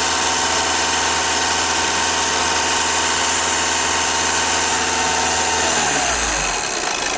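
Volkswagen Jetta's 2.0 TDI common-rail diesel engine held steady at about 2,500 rpm, then the throttle is released near the end and the revs fall toward idle.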